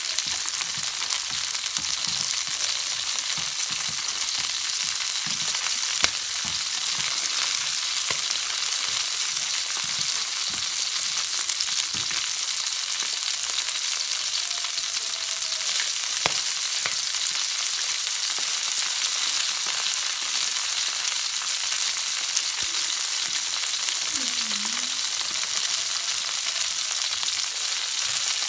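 Whole shallots, garlic and chillies frying in oil in an aluminium wok: a steady sizzle with a few sharp pops.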